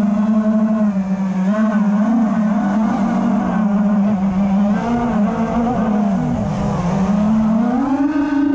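Quadcopter drone's electric motors and propellers buzzing steadily, the pitch wavering up and down as the throttle changes, dipping about two-thirds of the way through and then rising near the end.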